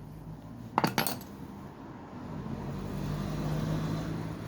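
A quick cluster of sharp metallic clinks about a second in, from steel tools and small engine parts knocking together as the cam chain tensioner is worked loose from an opened motorcycle engine. A low steady hum follows.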